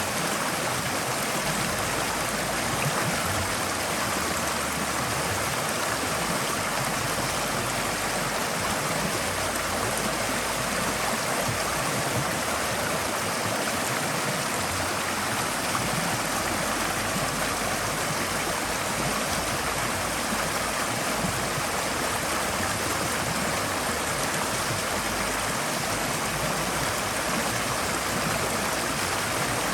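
Forest stream flowing steadily over rocks, an even rush of water with no breaks or changes.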